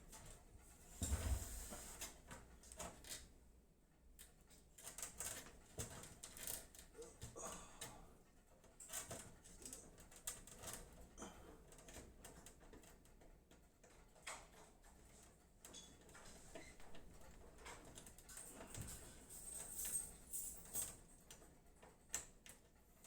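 Faint, scattered clicks and taps of PC parts and cables being handled, with a soft low thump about a second in.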